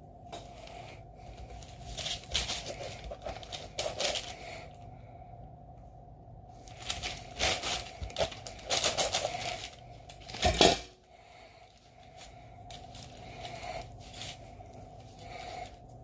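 A kitchen knife slicing kimbap rolls: irregular runs of crackly cutting clicks and taps as the blade goes through the seaweed-wrapped rolls and meets the board, with one loud knock about ten seconds in.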